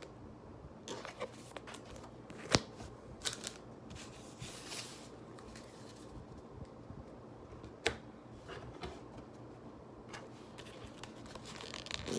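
Pokémon trading cards handled and a holo card slid into a plastic card sleeve: soft shuffling and rustling with a few sharp clicks and taps, the loudest about two and a half seconds in and another about eight seconds in.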